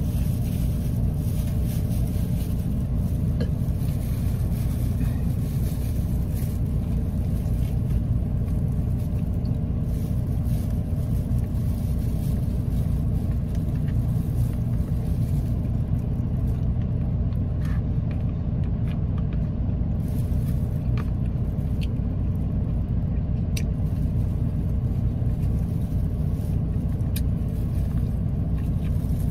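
Steady low rumble of a car idling, heard from inside the closed cabin. A few faint clicks sound over it.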